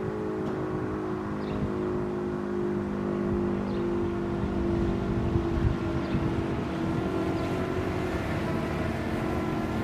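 Sterling M-10 mechanical siren sounding on an attack-signal test, a steady whine whose pitch holds nearly level.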